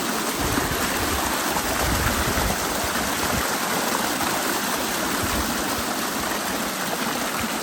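Rainwater rushing in a steady stream during a heavy downpour, a continuous loud splashing rush.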